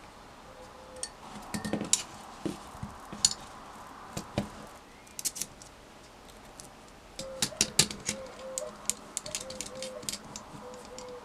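Scattered clicks and light clinks of small plastic and metal RC crawler parts being handled and fitted together: axle, suspension links and shocks going onto an aluminium chassis. The clicks come in clusters, busiest near the end.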